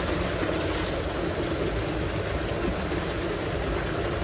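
Tubewell outlet pipe discharging a heavy jet of water into a concrete tank: steady gushing and splashing with a low rumble underneath.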